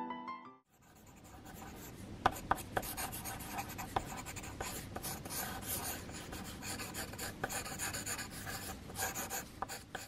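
Pencil drawing on paper: continuous scratchy strokes of graphite on the sheet, with a few sharper, louder scratches among them.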